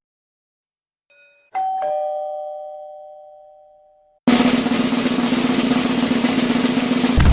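A two-tone doorbell chime, a higher note then a lower one, rings out and fades over about two and a half seconds. Then a sustained drum roll starts suddenly about four seconds in. A deep boom hits right at the end.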